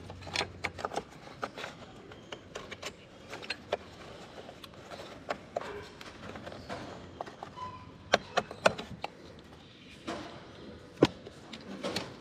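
Scattered plastic clicks and rattles from hands handling a wiring harness in corrugated plastic conduit and working its clips loose on an engine; the sharpest clicks come about eight and eleven seconds in.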